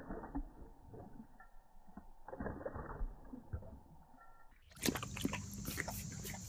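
A dog lapping water from a metal bowl: irregular slaps and splashes in bunches, dull and muffled. About four and a half seconds in the sound turns sharp and clear, with a quick run of clicks and splashes.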